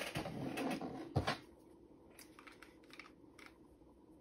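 Handling of a cable and small plastic gear on a desk: a scraping rustle for just over a second with a sharp knock near its end, then faint scattered clicks.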